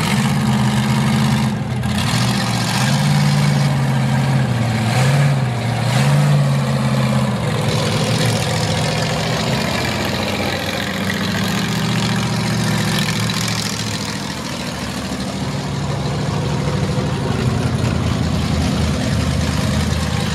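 Ford mega mud truck's 388 stroker V8 running as the truck drives, its pitch rising and falling with the throttle for the first several seconds, then running more steadily.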